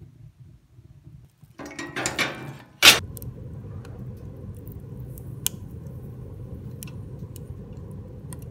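Metal wood-stove door scraping and then clanging shut with one sharp strike, followed by the fire inside burning with a steady low rumble and a few faint crackles.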